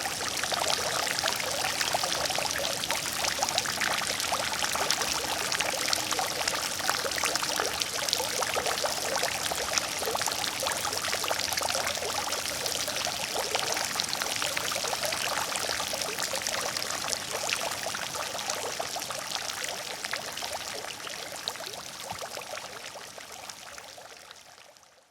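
Water fountain splashing steadily: falling water pouring into a basin with many small droplet splashes. The sound fades out over the last few seconds.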